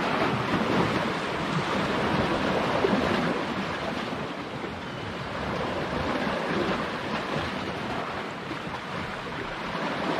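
Sea surf washing against shoreline rocks, a steady rush of waves that swells and eases, with some wind on the microphone.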